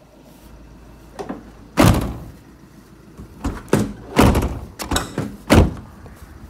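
Van doors on a Fiat Doblo panel van being handled and shut: a series of sharp thuds and clunks. There is a loud one about two seconds in, then several more in quick succession between about three and a half and six seconds in.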